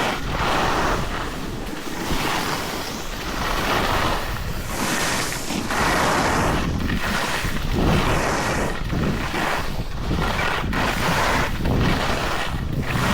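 Ski or snowboard edges scraping across packed snow through a run of turns, a hiss that swells and fades about every one and a half to two seconds, with wind buffeting the microphone.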